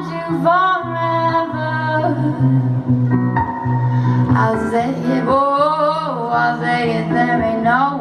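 Live music: a woman singing with long, gliding held notes over a guitar accompaniment.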